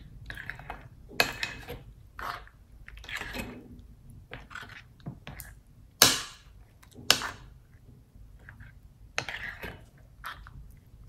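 Pink slime with foam beads being stirred and pressed in a plastic bowl: irregular wet squishing and sticky popping, with two louder sharp pops about six and seven seconds in.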